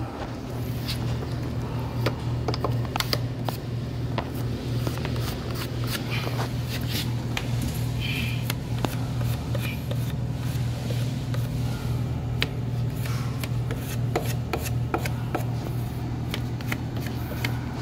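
A steady low hum throughout, with scattered light clicks, taps and scrapes from hand work around a door frame.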